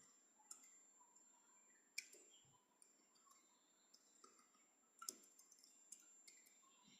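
Near silence broken by a few faint, scattered clicks, the clearest about two and five seconds in.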